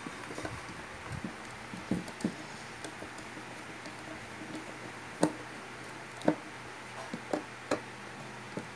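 Screwdriver working the screws of a speaker terminal plate set in a wooden baffle: scattered clicks, taps and light scrapes of metal on metal and wood, with two sharper clicks about five and six seconds in.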